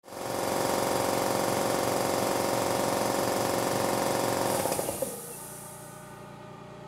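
Standard 60-gallon piston air compressor running loud alongside a direct-drive cast-iron scroll compressor (Eastwood Elite QST-30/60); about five seconds in the piston compressor stops, leaving only the scroll compressor's much quieter steady hum.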